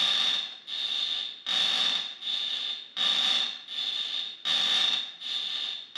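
Sandpaper-wrapped PVC pipe turned back and forth by hand in wooden V-blocks, rasping against fishing line under weight in an abrasion test. The scrapes come in even strokes, a long one then a shorter one about every second and a half, each with a steady high note.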